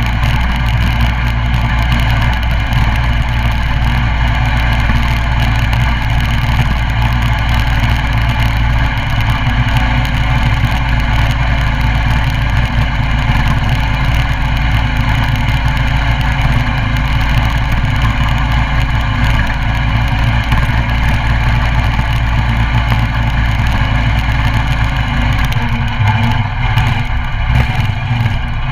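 Coleman CT200U mini bike's 196cc single-cylinder four-stroke engine running steadily and loud. Its note shifts about 25 seconds in.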